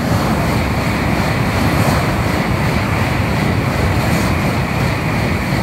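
Tōkaidō Shinkansen N700-series bullet train passing below at speed: a loud, steady rush of air and wheel-on-rail noise that begins to fade near the end as the train goes by.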